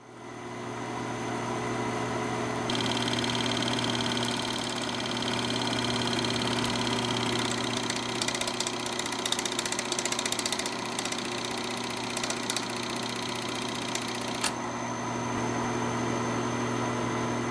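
Film projector running: a steady motor whirr with a fast, fine clatter that thins out after a sharp click near the end.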